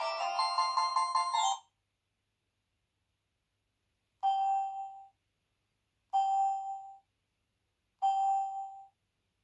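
HTC Advantage X7500 ringtones playing: a melodic ringtone tune ends about a second and a half in, then after a pause a different ringtone sounds one short chime tone three times, about two seconds apart, each fading out.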